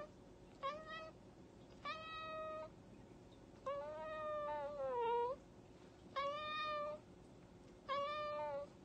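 Orange tabby cat meowing repeatedly: five meows, the longest in the middle, falling in pitch at its end.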